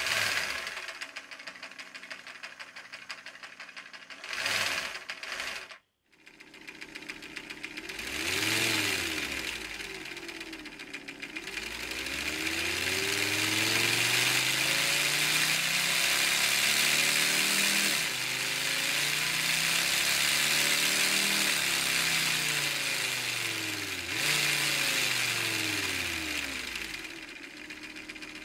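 Scale LEGO model of a Honda B18C four-cylinder engine, turned by an electric motor, its diecast metal pistons clattering up and down to mimic an engine's exhaust note. It is revved several times by varying the motor's voltage, the clatter speeding up and slowing down, with a brief cut about six seconds in and a long high-speed run through the middle before it winds down near the end.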